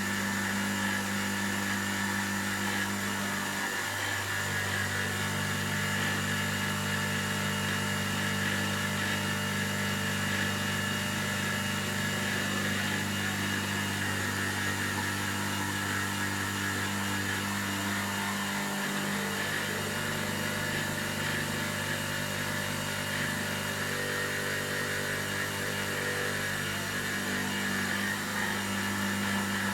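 CNC-converted Optimum BF16 mill roughing a part, most likely aluminium: the spindle and cutter run with a steady machining drone over a low hum. The tone shifts briefly about four seconds in and again just before twenty seconds.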